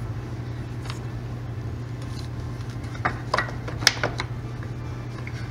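Steady low hum throughout. About three seconds in comes a short run of sharp clicks and knocks as the fog light assembly is worked free and lifted out of the plastic bumper cover.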